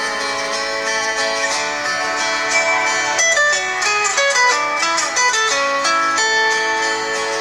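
A Nokia 6700 Classic ringtone playing: an instrumental melody with a quick run of notes in the middle.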